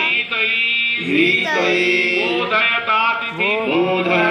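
Voices chanting a mantra in a sung, melodic line, with long held notes and gliding pitch.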